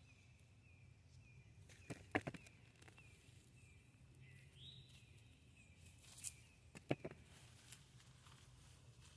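Faint outdoor background with a bird calling: a run of short repeated chirps and a few rising notes. A few sharp knocks stand out, a cluster about two seconds in and another pair near seven seconds.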